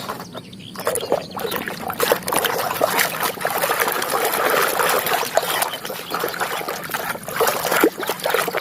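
Water pouring and splashing over a muddy plastic toy as it is washed, with small knocks of the toy being handled; it starts quietly and becomes a steady splashing after about a second.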